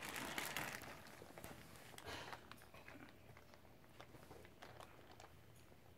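Plastic bags crinkling and rustling as they are handled, loudest in the first second and again about two seconds in, with a few light clicks.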